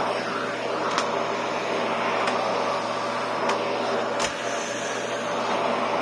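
National 'Powerful & Compact' vacuum cleaner running steadily, its motor giving a constant hum under the suction noise as the floor nozzle is pushed over rugs. A few brief sharp clicks sound through it.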